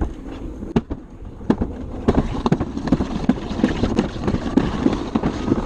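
Alpine slide sled running down its concrete track: a rumbling scrape with a quick, uneven rattle of knocks, louder and busier from about two seconds in.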